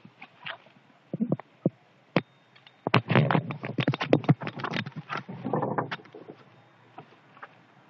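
Dogs scuffling in a fight: a few scattered knocks, then a burst of rapid scrabbling and knocking about three seconds in that lasts about three seconds.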